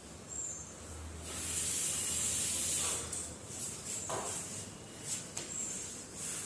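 A person breathing out forcefully in a yoga breathing exercise: one long hissing exhale of nearly two seconds, then several short puffs of breath.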